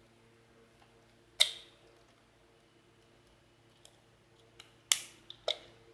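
A few sharp clicks and knocks from handling. The loudest comes about a second and a half in, and a quick cluster follows near the end, over a faint steady hum.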